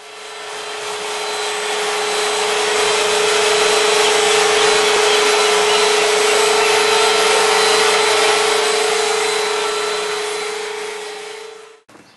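Vacuum cleaner running: a steady rushing motor noise with a strong held hum. It fades in over the first couple of seconds, then fades and cuts off just before the end.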